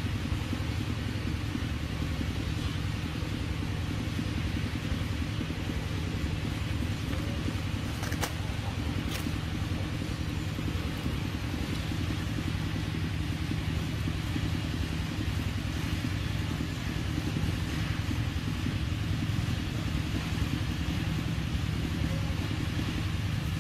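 Steady low motor drone that does not change, with two sharp clicks about eight and nine seconds in.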